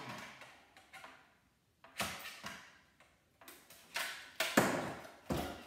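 Scattered clicks, snaps and knocks of hands working a CRT monitor's copper cord, the coil wrapped around the picture tube, free of its zip ties and the metal chassis. The sounds come one by one with short quiet gaps, the loudest toward the end.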